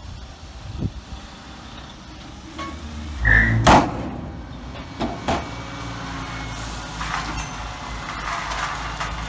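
Heavy diesel machinery engine running, growing louder about three seconds in. There are several loud clanks and knocks: one about three and a half seconds in and two around five seconds.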